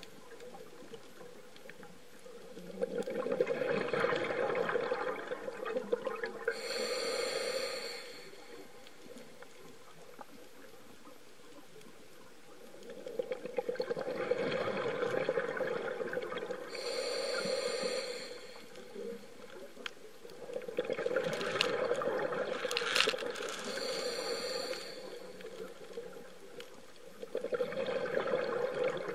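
Scuba diver breathing through a regulator, heard underwater through a camera housing: a few seconds of bubbling exhalation, then a shorter hissing inhalation, in a slow cycle of about ten seconds with quieter stretches between.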